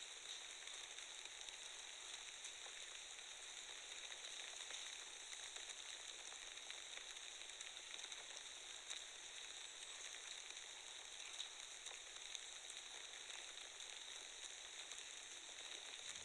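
Faint, steady hiss with a light crackle and no distinct events.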